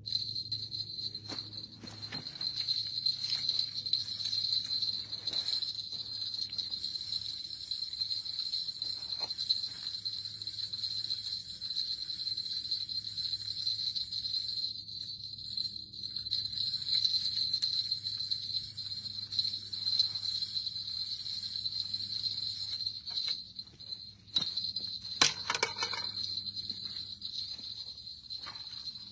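Crickets trilling in a steady, high night chorus. A single sharp knock stands out about 25 seconds in.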